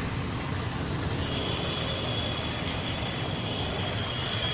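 Steady rumbling traffic noise, with a thin high whine that comes in about a second in and holds.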